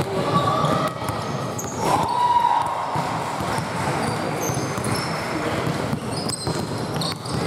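A basketball bounced on a hardwood gym floor in irregular dribbles, with sneakers squeaking and the echo of a large hall.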